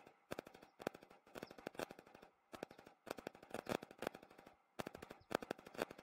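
Faint, irregular clicking and crackling, several sharp clicks a second that come in short runs.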